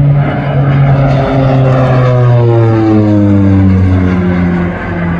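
OV-10 Bronco's twin Garrett T76 turboprops with their propellers, loud in a display pass, the propeller drone dropping steadily in pitch as the aircraft goes by.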